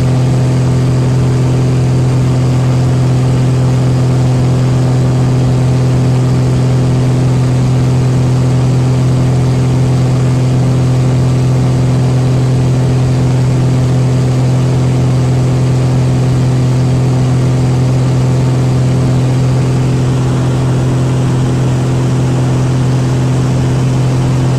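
Light aircraft's piston engine and propeller running steadily during the climb-out after takeoff, heard from inside the cabin as a loud, even drone with a deep hum.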